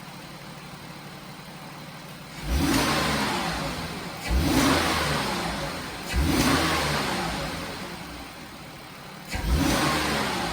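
A warmed-up Mazda MPV 3.0-litre V6 idling, then revved with four quick throttle snaps about two seconds apart, each dropping back toward idle. It is a snap-throttle test of the ignition coils after a misfire repair, and the engine runs clean, far better than before.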